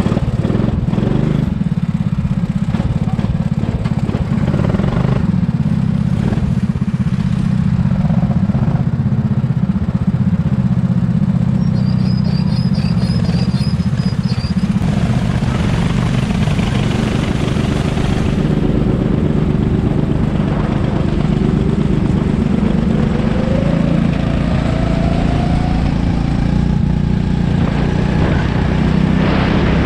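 Go-kart engine running steadily, recorded close up, with a higher engine note rising in pitch about two-thirds of the way through.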